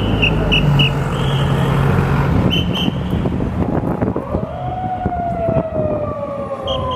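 Traffic noise with a running engine, then from about four seconds in an emergency vehicle's siren wailing, its pitch falling slowly.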